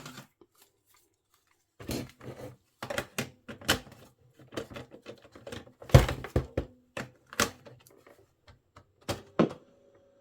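Plastic clicks and clacks of a cassette being handled and loaded into a vintage Philips radio cassette recorder, with its cassette door and piano-key buttons snapping. Near the end a faint steady hum starts.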